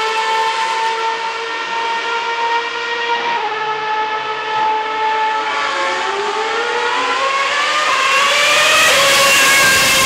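Formula 1 cars' 2.4-litre V8 engines: a steady high engine note that drops slightly about three seconds in, then a car's note climbing in pitch and growing louder as it comes down the straight, loudest near the end as it passes on the wet track with a hiss of spray.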